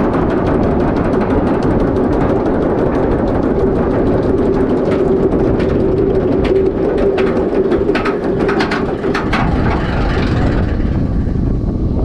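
Rushing wind and rumble on an amusement-park ride, with music playing over it. From about five seconds in there are a few seconds of sharp clattering.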